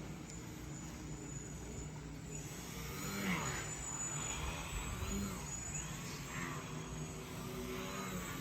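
A motor running steadily, a little louder for a few seconds around the middle.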